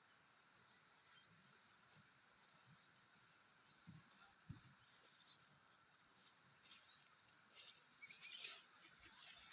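Near silence: faint rural ambience with a steady insect drone and a few small bird chirps, with some light rustling near the end.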